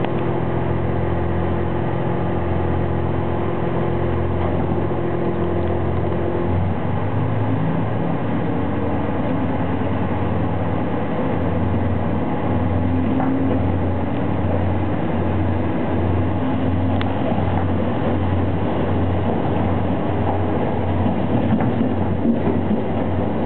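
HOT7000-series diesel railcar running as it pulls away from a station, heard inside the passenger car: the engine drone and running noise of the train. The engine's note changes about six and a half seconds in, and later a regular low throb sets in, about three beats every two seconds.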